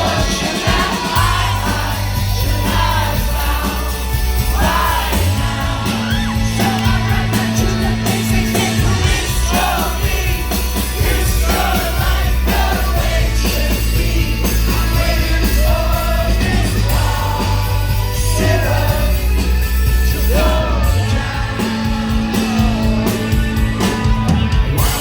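Live rock band playing a song, with a sung lead vocal over held, shifting bass notes.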